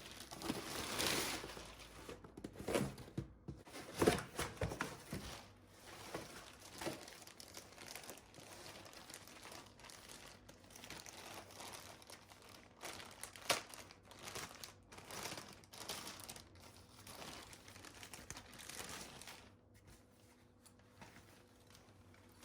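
Parcel packaging, plastic and paper wrapping, crinkling and rustling in the hands with some tearing as it is unpacked. It is busiest in the first few seconds, with occasional sharp crackles, and quieter handling near the end.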